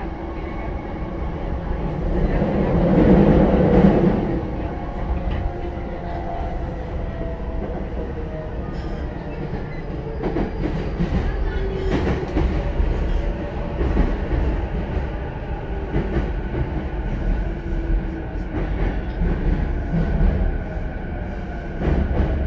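E233-1000 series electric train with Mitsubishi IGBT-VVVF traction equipment, heard from inside the car as it slows into a station. Wheel-on-rail rumble and clatter are loudest about three seconds in, and faint inverter tones fall slowly in pitch as it brakes.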